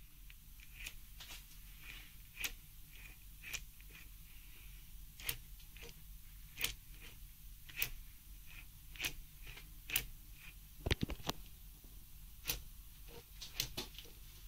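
Sharp clicks and knocks, roughly one a second with a quick cluster about two thirds of the way through, as a hand handles the pulleys and idlers of a milling machine's toothed-belt drive, over a low steady hum.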